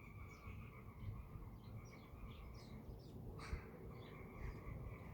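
Birds chirping in short high calls over a low, steady background rumble, with a faint steady high hum underneath; one louder call comes about three and a half seconds in.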